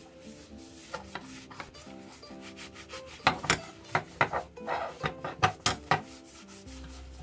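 A cloth rubbed and wiped hard over an AK-47 bayonet's blade and handle, in a run of loud, quick strokes from about three to six seconds in. Background music plays under it.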